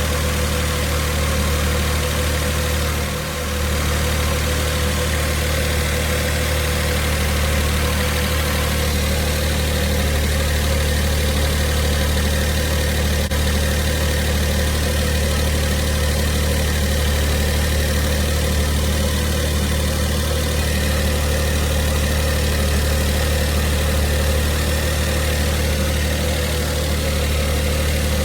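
Mitsubishi i's 660 cc three-cylinder engine idling steadily, with a steady tone over the idle. The car has two abnormal noises: a rattle that the owner traces to a failing air-conditioning compressor, overloaded by the new auto-tensioner, and a whirring from inside the engine whose cause is unknown.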